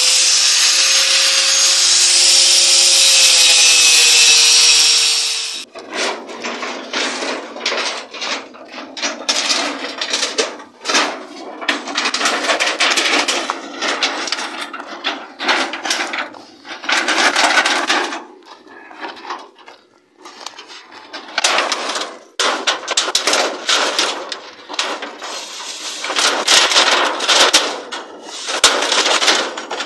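Angle grinder cutting rusty steel bar, a loud steady grinding hiss that stops about five seconds in. Irregular scraping and knocking follow for the rest.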